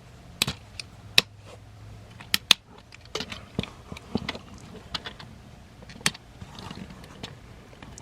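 A Transformers Legacy Motormaster figure's plastic parts clicking and snapping as they are unpegged and separated during transformation: a string of sharp, separate clicks, loudest as a quick pair about two and a half seconds in.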